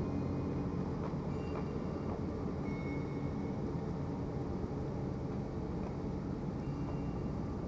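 Steady low city rumble with a faint, even hum underneath, and a few faint short high-pitched tones now and then.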